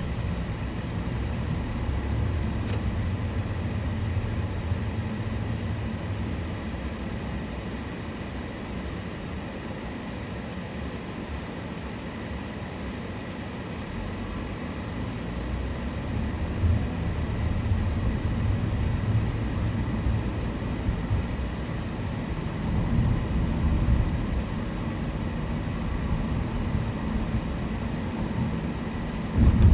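A car driving: steady low road and engine rumble that swells for several seconds in the second half. There is a sharp knock just before the end.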